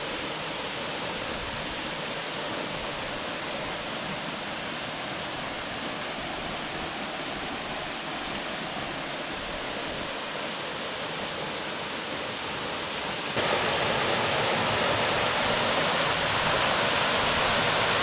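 Steady rush of a waterfall cascading down a rock face into a shallow pool. It grows louder about thirteen seconds in.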